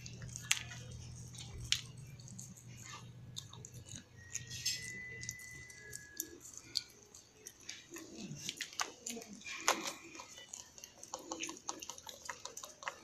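Small dog chewing dry treats taken from a hand: irregular sharp crunches and clicks.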